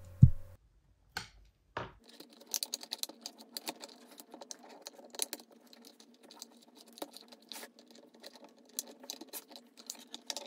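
Light, irregular clicks and taps of a 3D-printed plastic RC tank's body and tracks being handled and tipped over by hand, growing busier about two seconds in.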